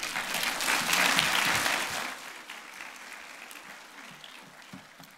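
Congregation applauding, loudest in the first two seconds and then dying away.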